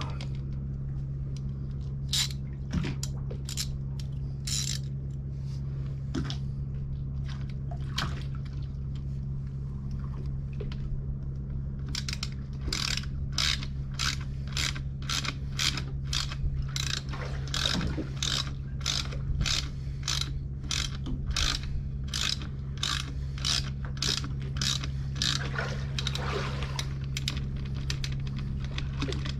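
Ratchet wrench clicking as the nuts on a bolt-on hydrofoil fin on a dinghy outboard's cavitation plate are tightened. There are a few scattered clicks at first, then from about midway a steady run of about two clicks a second, over a steady low hum.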